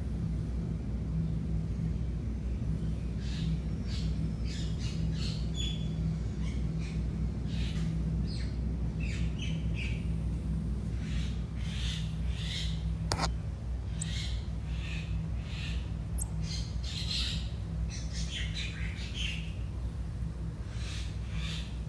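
Red-handed tamarin giving many short, high-pitched chirps and squeaks in irregular clusters, over a steady low hum.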